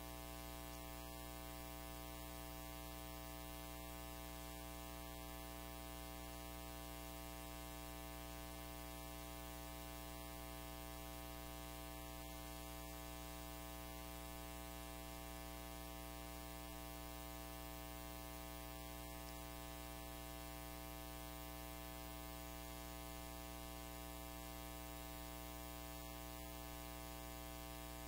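Steady electrical hum with a buzzy stack of overtones, unchanging throughout: mains hum in the microphone's audio feed.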